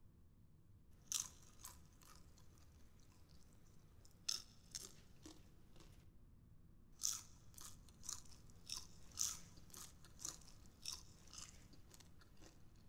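Crunchy Tortrix Twist snack chips being bitten and chewed: a short burst of sharp crunches about a second in, another around four seconds in, and a longer run of crunching from about seven seconds to near the end.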